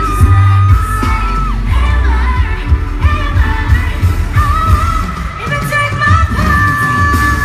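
Live pop music: a female vocal group singing over a loud backing track with heavy bass, with long held notes in the second half.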